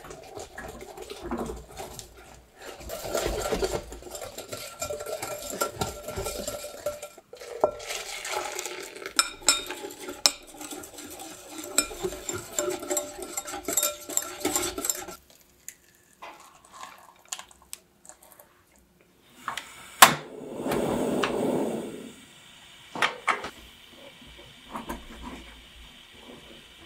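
Wire whisk beating a thin egg-and-milk-tea custard mixture in a glass mixing bowl: quick clinking and scraping of the tines against the glass for about fifteen seconds. After a lull, a sharp click and a two-second rush of noise, then a spatula scraping around a saucepan.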